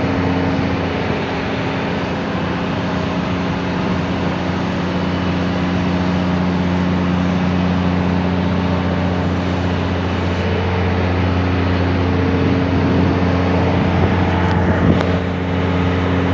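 A vehicle engine running at a steady speed, giving an even low hum, over a strong rushing hiss of wind.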